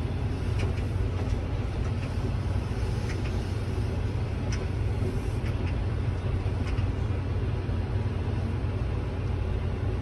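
Tractor engine running steadily, a low drone heard from inside the cab as it drives across the field, with a few faint ticks.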